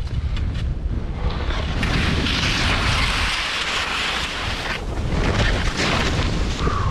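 Skis hissing through deep powder snow during a fast descent, loudest from about two seconds in to nearly five seconds, over a steady low rumble of wind buffeting the body-worn camera's microphone.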